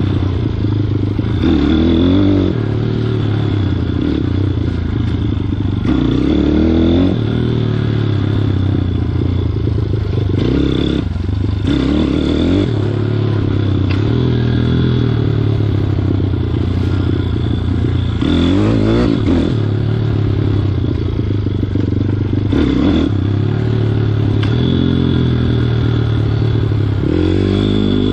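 Welsh Pit Bike 160's single-cylinder four-stroke engine, fitted with a 28mm carburettor, running hard while being ridden, revving up and falling back over and over as the throttle is worked.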